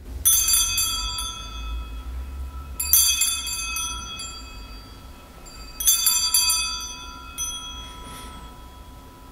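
Altar bells (Sanctus bells) rung three times, each a jingling strike of several bells that rings on and fades, signalling the elevation of the consecrated host at Mass.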